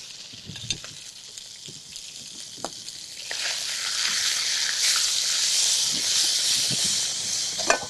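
Egyptian sausage (sogo' baladi) sizzling as it sears in a frying pan over high heat. It is stirred with a spatula, with a few knocks against the pan, and the sizzle grows much louder about three seconds in and drops back just before the end.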